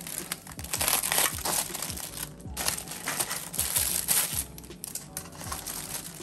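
Aluminium foil crinkling and crunching as foil-wrapped fish parcels are gripped with metal tongs and turned over on a baking tray, in a few spells of rustling.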